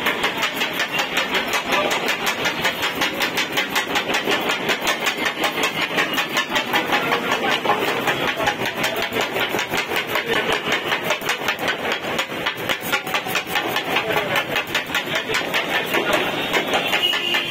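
Two flat metal chopping blades striking a steel griddle in a fast, steady clatter, chopping kottu parotta.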